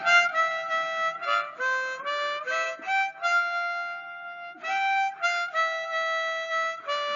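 A single reedy wind instrument, sounding like a harmonica, playing a slow melody of held notes, with a short break about three seconds in.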